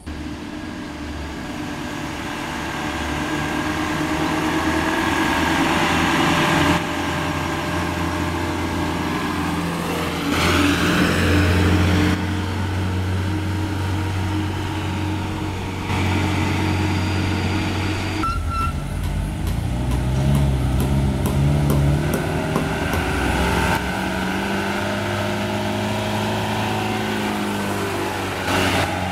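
Engines of trucks and buses labouring uphill past close by, one vehicle after another, each a heavy, steady engine note under load with its pitch rising and falling as it works up the slope. The sound changes abruptly several times where one vehicle gives way to the next.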